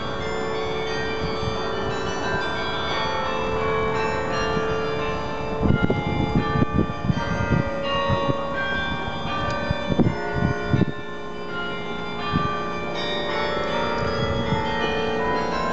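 A 50-bell church carillon playing a melody, many tuned bells ringing over one another. From about six to eleven seconds in, a run of irregular low thuds on the microphone is louder than the bells.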